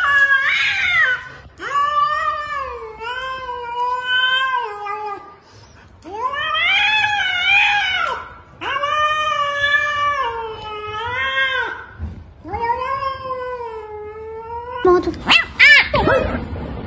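A cat yowling at another cat in a standoff: about five long, drawn-out, wavering caterwauls with short breaks between them, a threat display. Near the end come a few short, sharp calls that sweep up and down.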